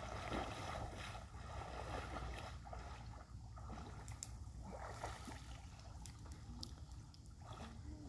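Faint water splashing as people wade and swim in a lake, with scattered small splashes.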